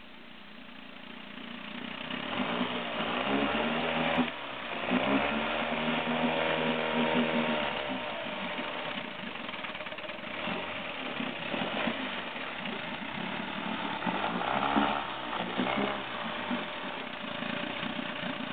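18 hp outboard motor starting about two seconds in, then running in a test tank with the throttle opened and closed several times, its pitch rising and falling with each rev.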